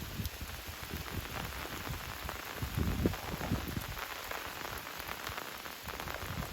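Rain falling steadily, with many separate drops ticking close by.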